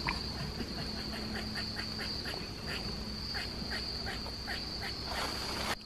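Evening woodland insect chorus: crickets and katydids make a steady high-pitched drone, over which a run of short calls repeats about three times a second.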